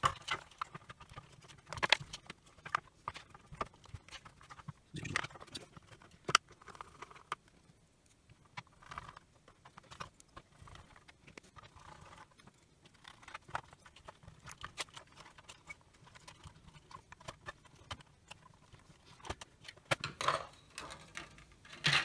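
Irregular knocks and clicks of the Milwaukee M18 multi-bay charger's hard plastic housing halves being handled, turned over and set down on a silicone work mat, with a few louder clacks around five to six seconds in and again near the end.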